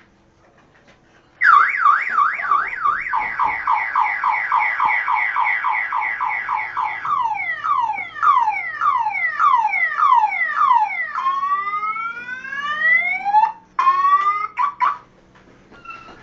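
Motor scooter alarm siren going off, cycling through several electronic tones: a fast warble, then rapid falling chirps, slower falling sweeps, and rising sweeps. It starts about a second and a half in and cuts off near the end after a few short broken bursts.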